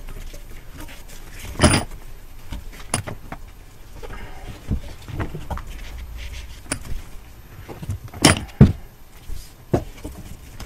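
Handling noise from winding exhaust heat wrap around a metal pipe held in a vise: the wrap rustling and scraping as it is pulled tight, broken by irregular knocks and clanks, the loudest about two seconds in and again about eight seconds in.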